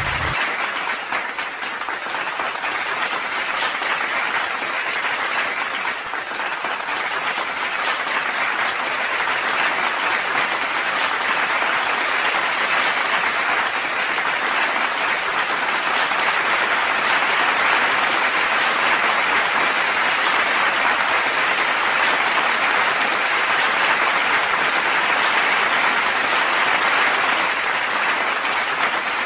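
Steady applause, an even clapping that runs on without a break.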